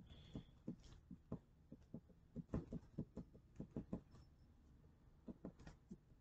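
Faint pencil strokes scratching and tapping on drawing paper: short, irregular strokes, several a second, with a brief lull a little past the middle.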